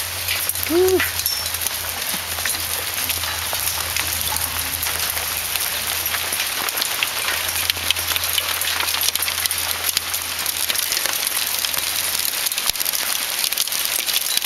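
Small hailstones coming down, a steady hiss made of countless tiny ticks as the pellets strike the patio and a glass-top table.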